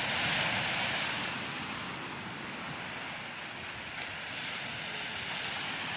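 Sea waves washing onto the shore, one wash swelling in the first second or so and then ebbing to a steady hiss of surf.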